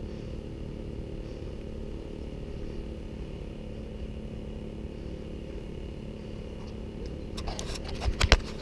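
Steady low rumble of wind and handling noise on a camera mounted on a color guard rifle. Near the end comes a quick run of clicks and sharp knocks against the camera, the loudest just before the end.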